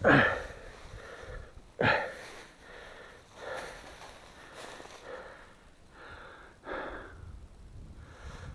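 A man's heavy breathing close to the microphone, with three loud breaths: one at the start, one about 2 seconds in and one near the end.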